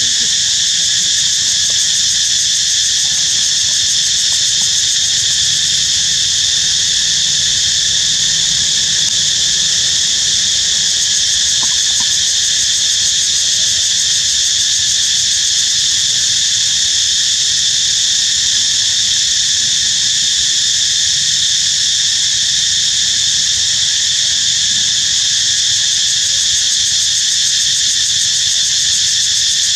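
Loud, steady chorus of insects in the surrounding trees, a continuous high-pitched drone that never lets up.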